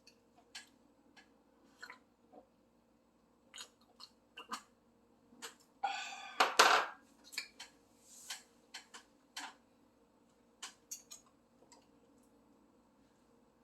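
Close-up eating sounds: wet chewing and mouth smacks with light clicks of cutlery and dishes, as roast duck is eaten wrapped in water parsley. About six seconds in comes a louder burst of noise lasting about a second.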